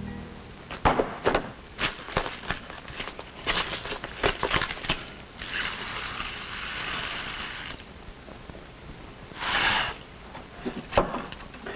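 Kitchen handling sounds: cartons and tins knocked and set down on a counter, and dry grains, rice by the narration, poured from a carton into a pan with a rattling hiss. A longer pour comes about halfway through and a short one near the end.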